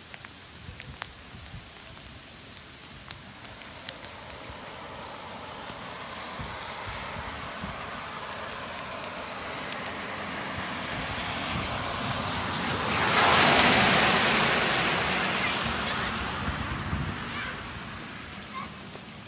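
Scattered ticks of hailstones landing, then a car passing on the wet, hail-strewn road: its tyre hiss swells over several seconds, is loudest a little past the middle and fades away.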